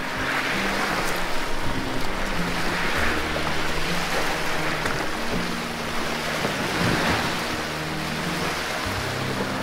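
Water splashing and washing around a kayak, swelling about every two seconds, under background music of low held notes.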